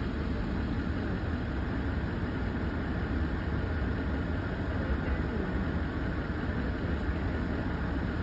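A steady low rumble with an even hiss above it, unchanging throughout.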